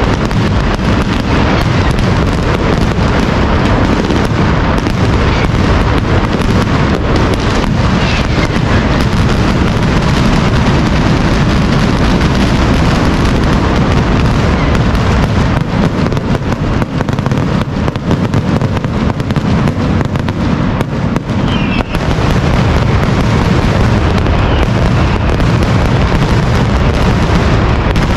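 Fallas mascletà firecracker barrage: a dense, unbroken run of bangs going off too fast to count, loud throughout.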